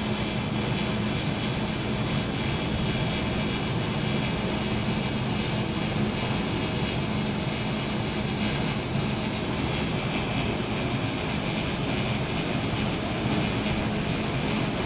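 Hushed open-air festival crowd keeping a minute's silence: a steady rushing background with a low hum, and no cheering, voices or music.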